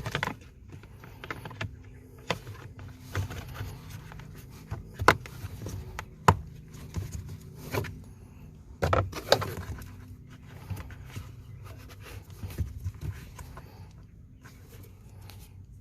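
Cabin air filter cover being handled and fitted over the filter housing: scattered clicks, taps and knocks, with sharper ones about five and six seconds in and a small cluster around nine seconds.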